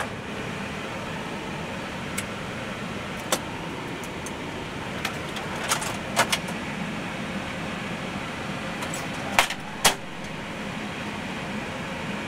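Steady cockpit noise of an Airbus A321 with its engines running at idle just after start, broken by scattered sharp clicks of switches and controls being worked, the two loudest close together about ten seconds in.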